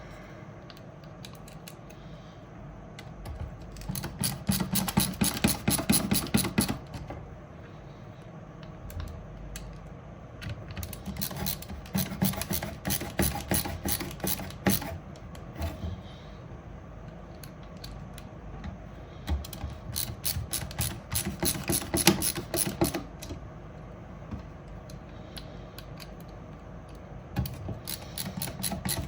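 Fast, even ratchet-like clicking in four runs of a few seconds each, with pauses between, while a 3D-printed plastic fan bracket is worked into a server case.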